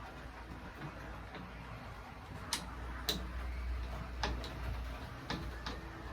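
Bike repair stand being adjusted by hand: about six sharp clicks and knocks at uneven intervals from its parts being moved and set, over a low steady hum.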